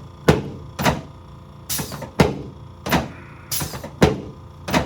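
Repeated sharp knocks from chiropractic adjusting thrusts on the left sacroiliac joint and lower lumbar spine. There are about eight in under five seconds, in loose pairs.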